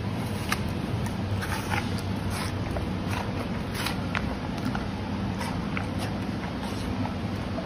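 Giant panda biting and chewing a piece of apple close up, with irregular wet crunches and smacks, most of them in the first few seconds. A steady low hum runs underneath.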